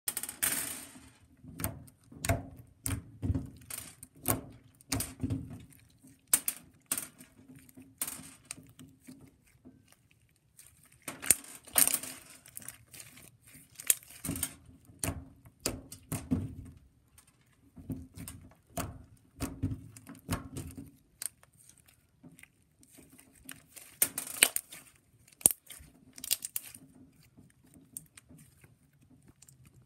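Slime being squished and poked by hand, giving irregular crackling pops and clicks in uneven clusters, with a faint steady hum underneath.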